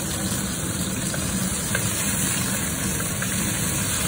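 Range hood exhaust fan running with a steady hum over chicken and garlic sizzling in a hot wok. A few light taps come as a wooden spatula stirs the pan.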